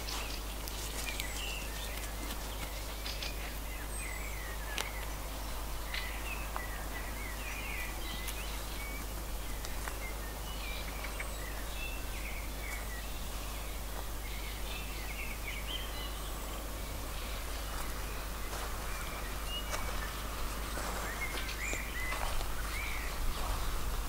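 Small birds chirping and twittering on and off in the background, over a steady outdoor ambience with a constant low rumble.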